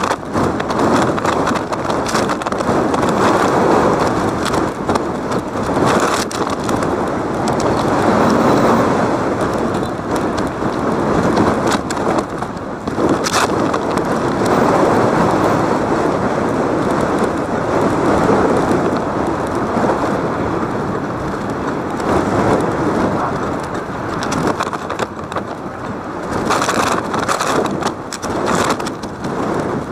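Steady, rumbling ambient noise of a live game, swelling and dipping, with a few sharp knocks: one about 13 seconds in and several close together near the end.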